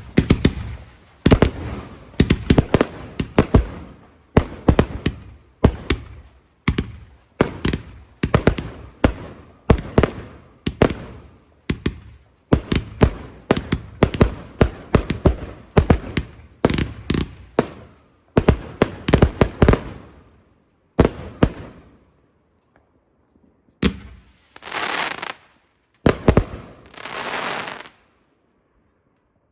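Fireworks display: a rapid barrage of sharp bangs, several a second for about twenty seconds, then thinning out. Near the end come two crackling bursts lasting about a second each.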